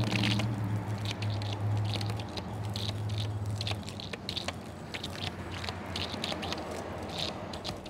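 Garden-hose water sputtering and spattering out of a pressure washer's spray wand with the engine off, spitting irregularly as trapped air and debris are worked out of the pump and hose. A low hum underneath stops about four seconds in.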